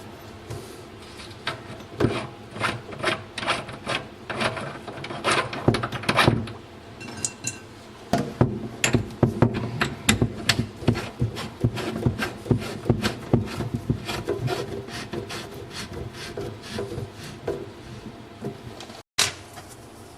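Hands and tools working on a built-in dishwasher installation: irregular knocking, scraping and rubbing in quick runs of sharp knocks with short pauses between them.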